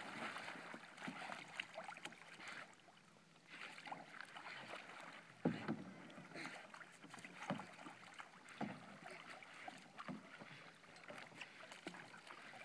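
Faint, irregular water lapping and splashing, with a single sharp knock about five and a half seconds in.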